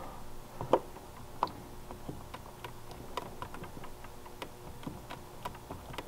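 Buttons being pressed on a Fire-Lite MS-10UD fire alarm control panel's built-in keypad: a quick, irregular series of small clicks as the panel is put into programming mode and a password is keyed in.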